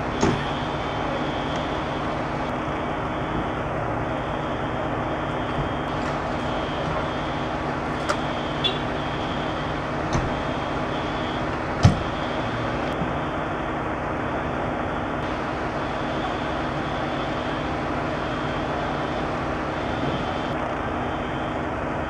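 Parked fire engine's diesel engine idling steadily, with a few short sharp knocks, the loudest about twelve seconds in.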